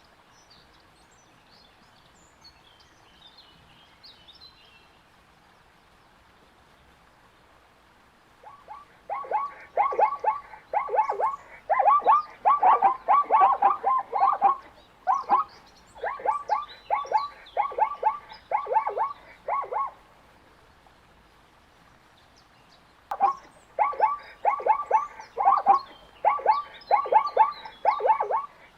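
Zebra calling: long runs of quick, repeated barking yelps, about three or four a second. The first run starts about eight seconds in and lasts around eleven seconds; a second starts a few seconds after it ends.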